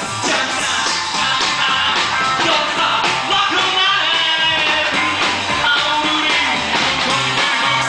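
Rock and roll band playing a song, loud and continuous.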